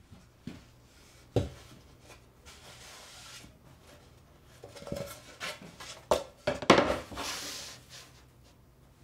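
Wooden boards handled on a hardwood workbench top: a sharp wood-on-wood knock about a second and a half in, then scraping as a board slides across the bench, and a cluster of knocks and a longer scrape a little before the end as the board is set down and pushed into place.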